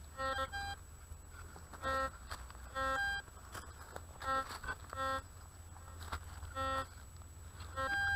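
White's DFX metal detector giving short, buzzy multi-tone beeps, about eight, roughly one a second, as its coil is swept over the ground and picks up targets.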